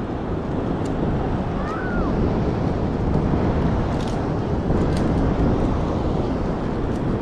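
Steady wind buffeting the microphone over the continuous wash of ocean surf.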